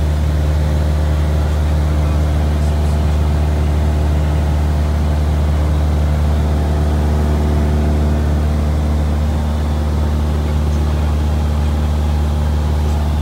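Light aircraft's piston engine and propeller running steadily in cruise, a constant low drone heard inside the cockpit.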